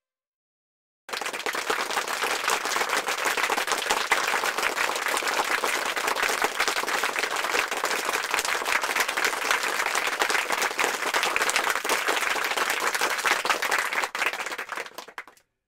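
A crowd applauding, a dense steady patter of many hands clapping, starting suddenly about a second in and dying away near the end.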